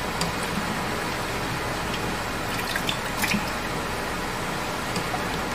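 Potato slices dropped and stirred in a pot of hot water with a wire spider strainer: a scattering of small splashes and light clicks, busiest around the middle, over a steady background noise.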